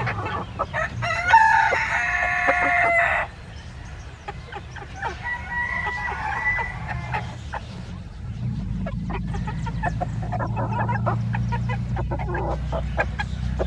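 Sebright bantam rooster crowing once, about a second in: a shrill crow of about two seconds that cuts off sharply. Hens cluck and peck around it, and a low steady rumble sets in from about eight seconds in.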